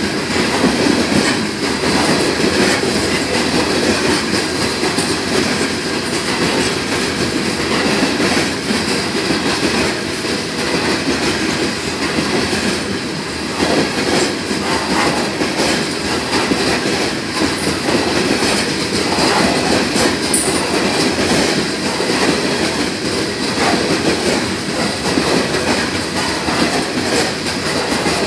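Freight train of coal hopper cars rolling past: steel wheels running steadily on the rail, with repeated clacks as the wheel sets cross the rail joints.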